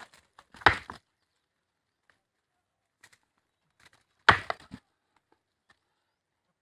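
Two rams butting heads: two loud, sharp cracks of horn on horn, about three and a half seconds apart, each followed by a short clatter of smaller knocks.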